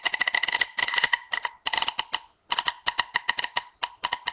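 Rapid, uneven clicking, many clicks a second over a steady ringing tone, broken by two short pauses.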